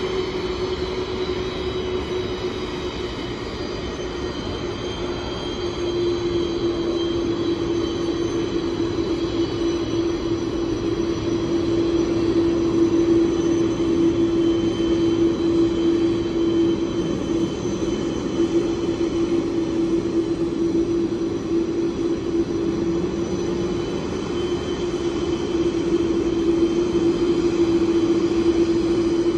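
Boeing 747's four jet engines running at low taxi power: a steady low hum with a faint high whine over a rushing noise, growing slightly louder about six seconds in.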